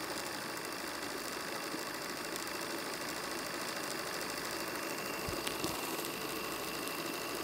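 Live steam model locomotive running free on the bench with its wheels off the track, under its own steam for the first time. The cylinders and motion make a fast, steady, machine-like chatter along with steam hiss.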